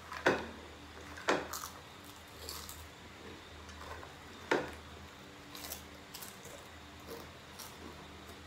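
Eating without hands: scattered chewing and crunching with small clicks, and three sharp knocks of a plate on the table, the loudest just after the start, another a second later and one more about four and a half seconds in.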